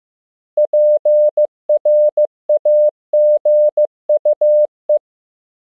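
Morse code sent as a single steady beep tone at 15 words per minute, short dots and long dashes spelling the word PRAGUE. It starts about half a second in and stops about five seconds in.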